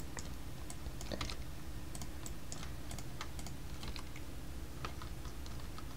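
Irregular clicks of a computer keyboard and mouse, a few per second, over a faint steady low hum.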